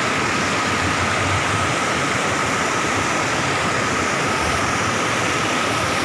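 Steady rushing of a mountain stream cascading over boulders at a small waterfall.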